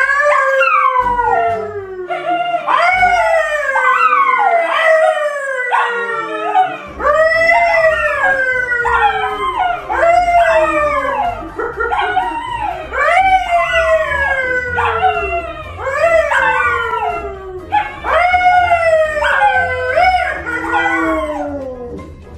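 A yellow Labrador and a brown poodle howling along with a man. It is a long chain of falling howls, a new one every one to two seconds, the voices overlapping.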